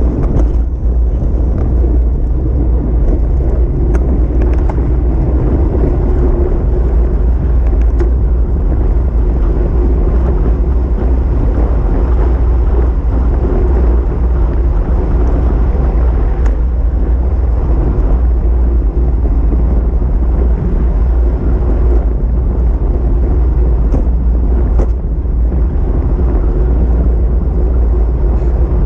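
Wind buffeting the microphone of a camera on a moving bicycle, a loud steady low rumble, with a noisy hiss of riding over the road beneath it.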